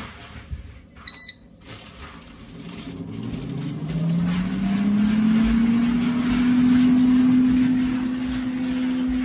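An electric household appliance beeps once at a button press, then its motor or fan spins up with a hum that rises in pitch over about three seconds and settles into a steady run.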